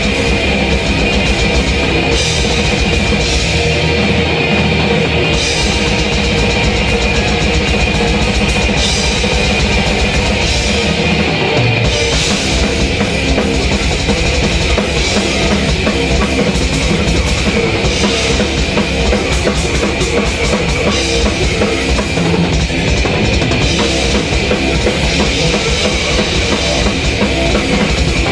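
Heavy metal drumming on a full drum kit: dense, fast kick-drum strokes and cymbals, loud and continuous, within a death metal song.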